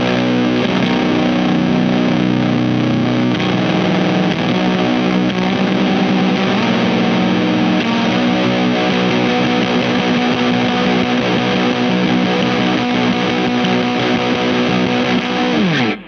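Eastwood Sidejack Deluxe baritone electric guitar played through a Weird Noise Pedals Fuzz It fuzz pedal: big, heavily fuzzed chords held and let ring. At the very end a slide down the neck drops the pitch, and the sound stops suddenly.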